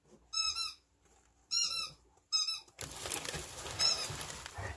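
Dogs playing: a run of four short, high-pitched squeaks in about four seconds, with a rustling, scuffling noise through the second half.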